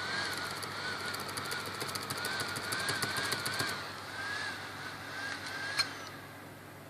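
HP 455 laptop's fan and hard drive running erratically during a failed startup: a whine that wavers up and down unevenly, with rapid faint ticking over the first few seconds. A sharp click comes near the end, and the whine then dies away. The erratic fan and drive noise was a symptom of a faulty motherboard.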